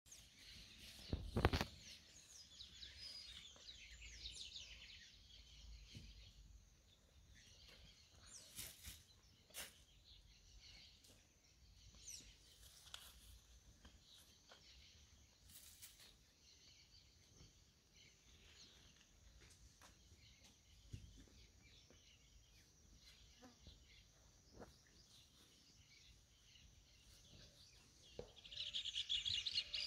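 Quiet rural pasture ambience with faint birds chirping, a few brief knocks, the loudest a sharp thump about a second and a half in. Near the end a bird starts up loud, rapid chirping.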